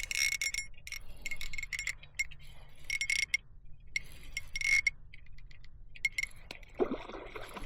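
Fishing reel clicking in several short spurts of rapid, ringing metallic clicks, as line is worked with a fish on or at the lure.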